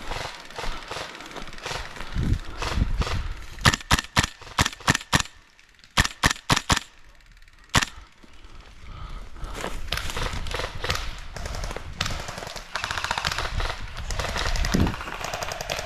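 Airsoft guns firing: stretches of rapid automatic fire, with a cluster of sharp single shots about four seconds in, another about six seconds in, and a lone shot near eight seconds.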